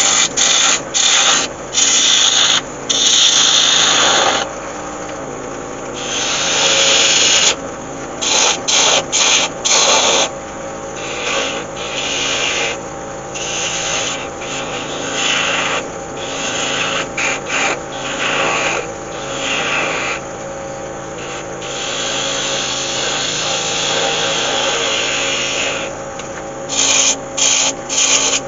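Iroko spindle blank spinning on a wood lathe while a turning tool cuts it to shape. The tool's cut makes a loud scraping rush that starts and stops with each pass, and between passes the lathe runs with a steady hum.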